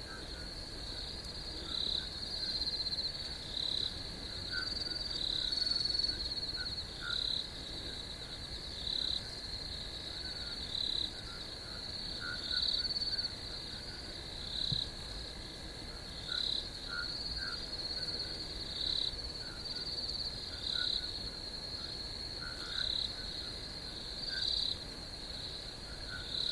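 A steady, high-pitched chorus of chirring insects, swelling and dipping in short pulses every second or two, with fainter lower chirps mixed in.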